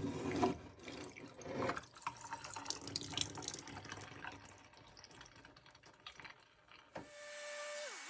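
Dirty water from a Bissell portable spot cleaner's tank splashing and dripping, tapering off over a few seconds. About seven seconds in it gives way to background music with steady held notes.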